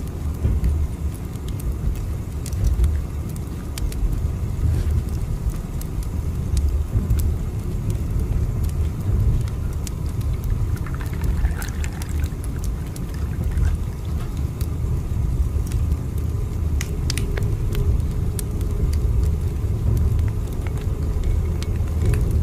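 Train running, a steady low rumble with faint scattered ticks.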